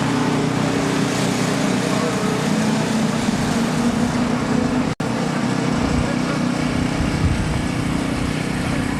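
An engine running steadily at a constant speed, with a dense, even sound. It cuts out for an instant about five seconds in.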